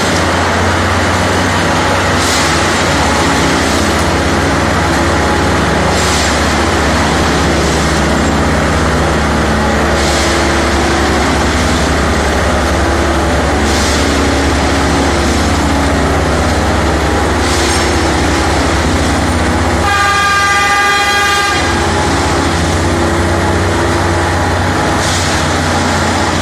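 Plasser & Theurer Dynamic Tamping Express 09-3X track-tamping machine running loudly, its diesel engine giving a steady low drone, with a short burst of noise about every four seconds. One horn blast of about a second and a half comes about three-quarters of the way through.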